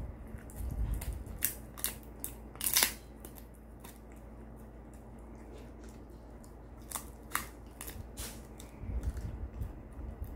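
Shiba Inu gnawing and biting at a big bone-shaped chew treat held in a hand: scattered sharp crunches and tooth clicks, the loudest cluster about three seconds in, with more around seven to eight seconds.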